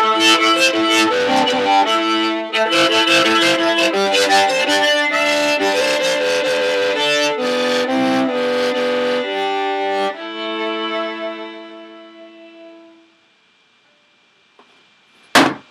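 Solo violin playing the close of an improvised folk tune. The last long note fades away about two-thirds of the way through, leaving near silence, and a single sharp knock sounds just before the end.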